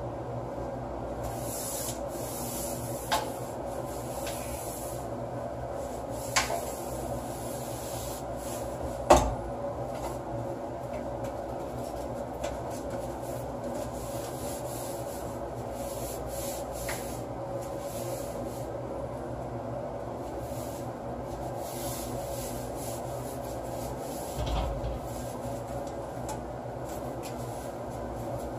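Cloth rubbing and scrubbing steadily over a hard black item, with a few sharp knocks; the loudest knock comes about nine seconds in.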